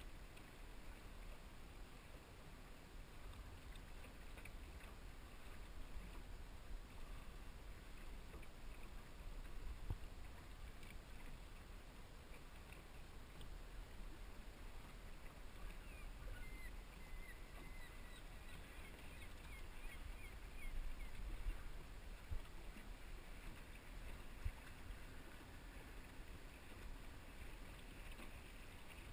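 Water washing and lapping along the hull of a small sailing dinghy under way, over a low rumble. A few faint high chirps come a little past the middle.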